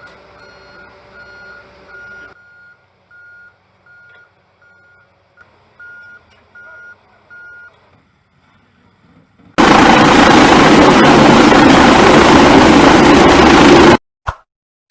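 Electronic beeping at one steady pitch, about two beeps a second for several seconds, fading after the first couple of seconds. Later a very loud, even rushing noise lasts about four seconds and cuts off abruptly.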